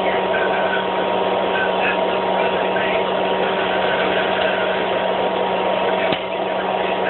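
Electric popcorn popper running with a steady hum as the kernels start to pop, with one sharp pop about six seconds in.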